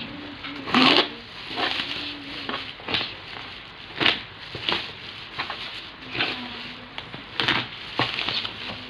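Plastic packaging crinkling and crackling as it is handled and opened, in a string of irregular sharp crackles.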